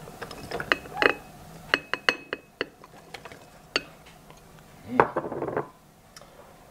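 Sliced jalapeño pieces tipped from a glass bowl into a glass jar: a scatter of sharp clinks and taps on glass, a few of them ringing briefly. The loudest knock, with a short rattle, comes about five seconds in.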